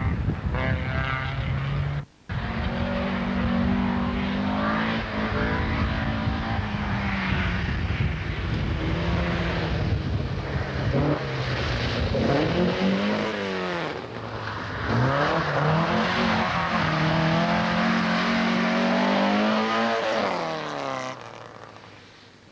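Rally car engines at hard throttle, revving up and dropping back through gear changes as the cars go past, the pitch repeatedly rising and falling. The sound cuts out briefly about two seconds in and fades away near the end.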